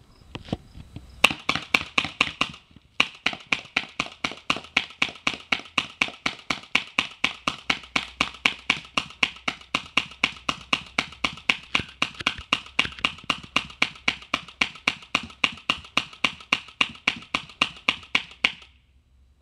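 Nova N4 Odin paintball marker with a DNA Blunderbuss barrel firing a long, steady string of shots, about three or four a second, with a brief pause about three seconds in; the shots stop shortly before the end.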